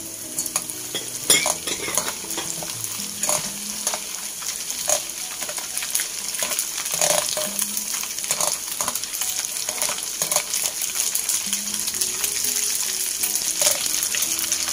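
Dried silver anchovies sizzling as they deep-fry in hot oil, stirred with a metal wire skimmer that gives occasional sharp clicks and scrapes against the pot.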